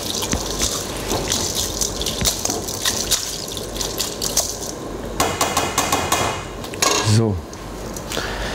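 Water sloshing in a stainless-steel bowl as blanched red chard is swirled through ice water with a wire skimmer to cool it, with light clinks of the metal skimmer against the bowl. A short voice sound comes about seven seconds in.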